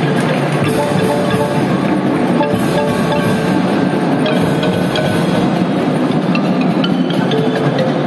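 Marching drum band playing loudly and without a break: drums under pitched mallet percussion from marimbas and xylophones, with notes struck in quick succession.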